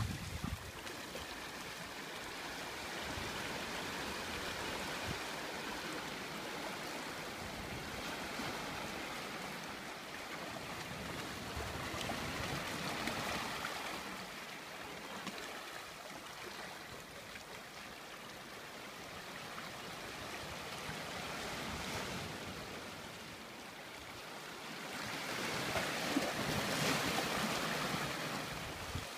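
Small waves washing up over sand and around boulders at the water's edge: a steady rush that swells and fades every several seconds, loudest near the end.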